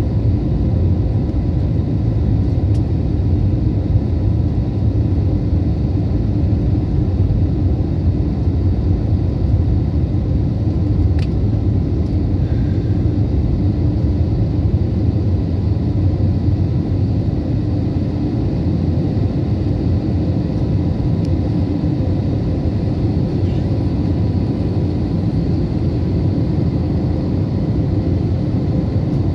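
Steady low rumble of a jet airliner heard from inside the passenger cabin: engine and airflow noise, even throughout.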